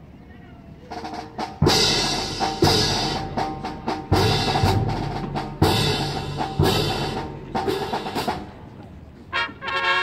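Marching band playing: after a quiet first second, a held chord comes in, then a run of loud accented full-band hits with drums, about one a second, each dying away. Near the end it softens and horns enter.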